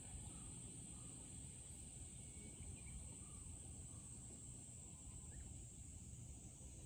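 A faint, steady high-pitched insect chorus, over a low, even rumble of wind or distance.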